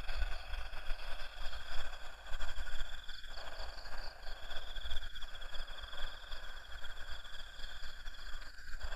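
Night insects trilling steadily at several high pitches, with the strongest trill pausing for about a second a few seconds in. A low rumble sits on the microphone underneath.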